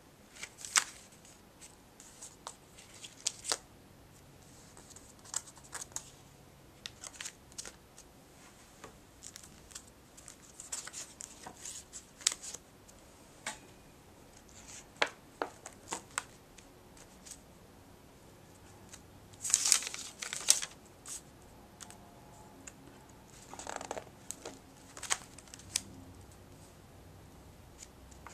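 Pages of a thick spiral-bound sketchbook, stuck with photos and fabric swatches, being handled and turned: scattered paper taps and crinkles, with two longer rustles of pages turning about two-thirds of the way through.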